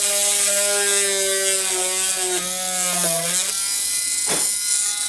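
Small handheld portable drill with a very fine bit whining as it drills a hole through a model carriage side. The pitch sags and wavers under load about two to three seconds in, then runs steady once the bit is through. There is a single light knock a little after four seconds.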